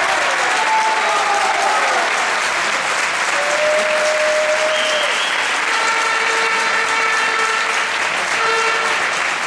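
Crowd applauding steadily in a sports hall. A few long held tones sound over the clapping, one in the middle and several together from about six seconds in.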